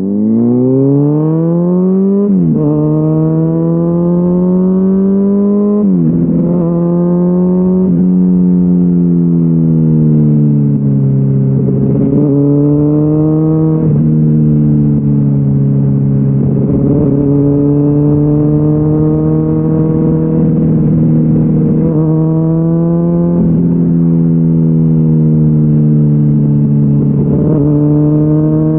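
Honda CBR600RR's inline-four engine through a GPR Deeptone exhaust with the db-killer removed, pulling up through the gears. The pitch climbs and drops sharply at each of several upshifts over the first fourteen seconds, then settles into a steady cruise with small rises and falls.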